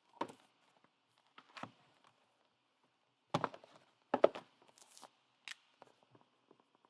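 Trading cards and their packaging being handled on a table: scattered taps and clicks, with a brief crinkly rustle about five seconds in.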